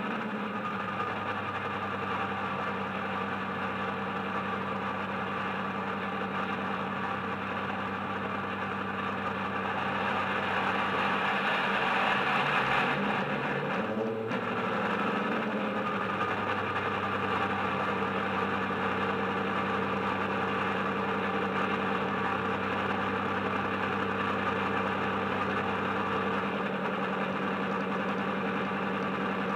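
Bachmann Class 55 Deltic model's Loksound 5 decoder playing a recorded Deltic diesel engine sound through an EM2 speaker, running steadily at idle with a deep throb. It grows louder around 12 seconds in and breaks off briefly near 14 seconds, then settles back to a steady idle.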